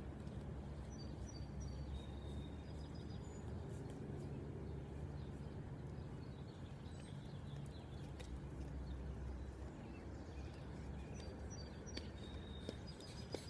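Outdoor ambience: a steady low background rumble with a few short, high bird chirps, clustered about a second in, around three seconds in, and again near the end.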